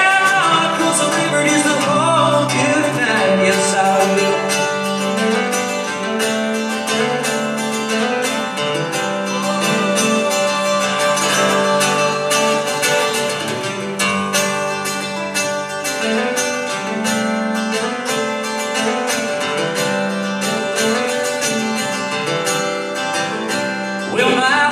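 Acoustic guitar strummed steadily in an instrumental break of a live solo song.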